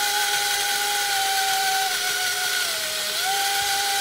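Countertop blender motor running with a steady whine as it blends a thick mix of fruit, pretzels, barbecue chips and tomato paste. Its pitch sags about three seconds in, then picks back up.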